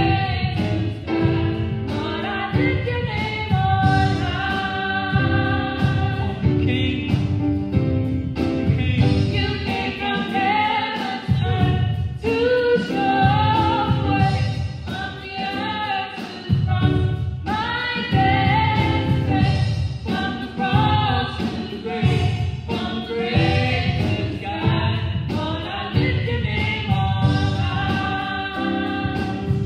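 Gospel vocal trio, one man and two women, singing into microphones in close harmony over accompaniment with a steady low beat.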